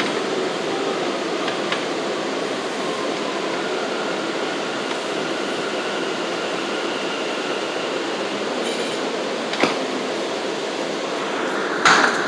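Interior of an R179 subway car running on elevated track: a steady rumble of wheels on rail with a faint whine, and a few sharp knocks, the loudest near the end.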